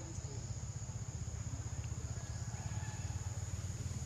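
Outdoor ambience: a steady high-pitched insect drone over a continuous low rumble.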